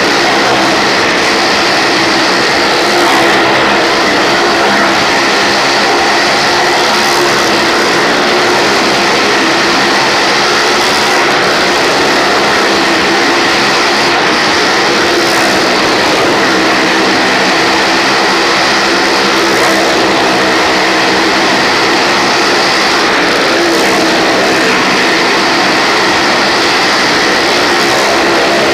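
Cars and motorcycles running around the vertical wooden wall of a well-of-death arena, a loud, steady engine drone.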